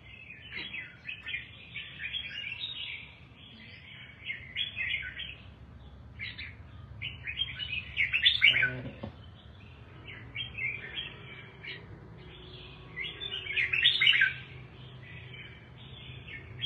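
Red-whiskered bulbul singing: a run of quick chattering, warbled phrases with brief gaps between them, loudest about eight seconds in and again around fourteen seconds.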